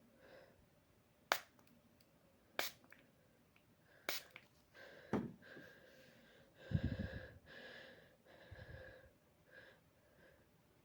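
Three quick puffs of an aerosol body spray, about a second and a half apart, followed by a few seconds of sniffing and unsteady breathing through the nose as the spray takes effect.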